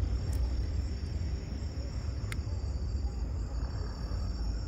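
Night insects trilling in one steady high tone over a low, steady rumble, with a single brief click about two seconds in.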